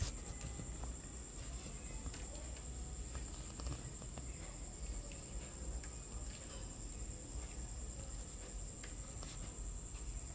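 Faint soft strokes of an ink calligraphy brush on paper. Underneath run a low hum and a steady high-pitched whine.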